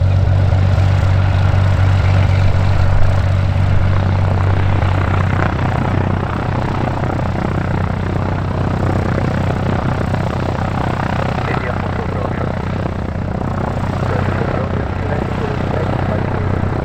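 Cessna 182R Skylane's six-cylinder Continental O-470 engine and propeller running steadily at low taxi power. The engine note eases slightly about five seconds in.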